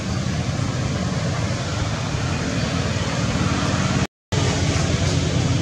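Steady low rumbling background noise with no animal calls, which cuts out completely for a moment about four seconds in.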